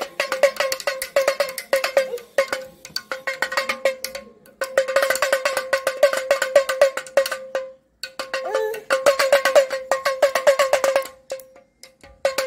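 Toy plastic damru (pellet drum) twisted back and forth in the hand, its bead strikers hitting the two drumheads in a rapid, even rattle with a ringing pitched tone on each stroke. It plays in three or four runs broken by brief pauses.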